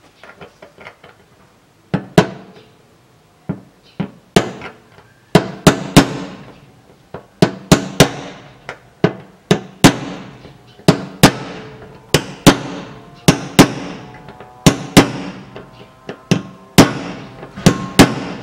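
Hammer blows on the fuel filler door hinge of a 2004 Toyota Harrier, knocking in the stuck mandrel of an aluminium blind rivet that is blocking the drill bit. The sharp metallic strikes come about every second, often two or three close together, each with a brief ring. They start about two seconds in, after some light clicking.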